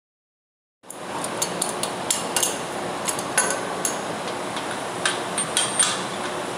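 Steel spanners clinking and clicking against the flange bolts and nuts of a butterfly valve as they are loosened by hand, in irregular sharp metallic knocks starting about a second in, over a steady background noise.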